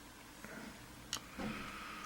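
Faint clicks of small padlock pin-tumbler pins being handled with a pick: a light tick, then one sharper click about a second in.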